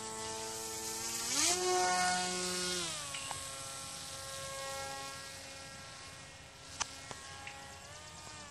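Small electric motor and propeller of a homemade remote-controlled airplane buzzing. Its pitch rises about a second and a half in as the throttle is pushed up, drops back about three seconds in, then holds steady. A sharp click sounds near the end.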